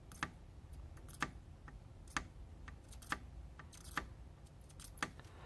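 Faint, light clicks about once a second as a soldering iron tip taps along the pins of an HDMI port on a PS4 circuit board while the joints are reflowed.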